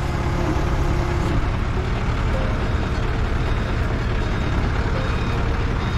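TCM forklift engine running steadily at close range while it lifts a load of sandwich panels off a truck, a dense low rumble with a steady whine that stops about a second and a half in.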